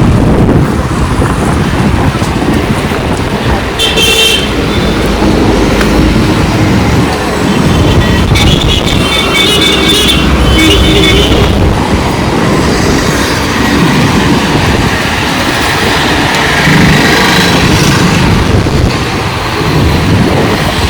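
Road traffic with wind rumbling on the microphone and vehicle horns honking: a short honk about 4 seconds in and a longer run of honks from about 8 to 11 seconds in.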